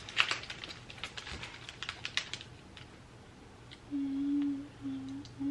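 Quick light clicks and crackles from snacks and their packaging being handled. About four seconds in, a voice hums a steady note in three short stretches.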